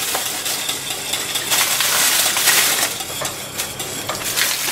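Aluminium foil and paper wrapper of a dark chocolate bar crinkling as squares are snapped off and dropped into milk, with sharp little clicks among the rustle, loudest from about one and a half to three seconds in.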